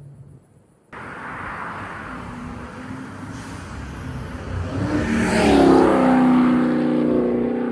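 Twin-turbo 5.7-litre Hemi V8 of a Dodge Charger under hard acceleration. The sound cuts in suddenly about a second in and swells to its loudest a little past the middle. Its pitch then drops and holds on one steady note.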